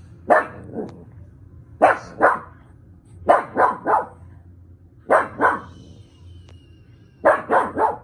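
Pug barking in short volleys of two or three sharp barks, each volley about a second and a half apart. These are alert barks at something the dog is watching that the owner cannot see.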